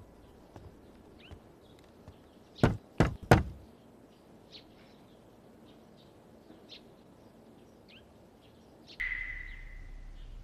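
Three sharp knocks in quick succession, over faint scattered bird chirps. About nine seconds in, a high ringing tone starts and slowly fades.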